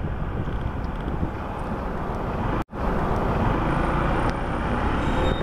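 Wind noise over the microphone, with the steady drone of a Honda ADV150 scooter's engine and its tyres on the road while cruising. The sound drops out for an instant about two and a half seconds in.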